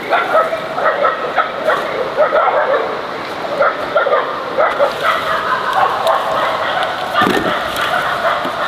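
A dog whimpering and yipping in quick, short, high calls, over and over, with a few longer drawn-out whines around the middle.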